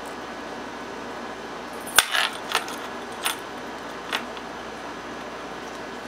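Small metallic clicks from a pick and tension wrench working in the keyway of a Regal No. 5050 padlock: one sharp click about two seconds in, then a few lighter clicks over the next two seconds, over a steady hiss.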